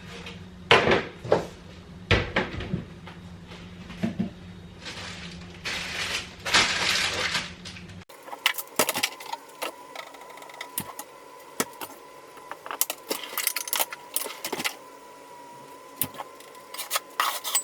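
Kitchen clatter: dishes, cutlery and utensils clinking and knocking as breakfast is prepared, with a stretch of hissing noise about five seconds in.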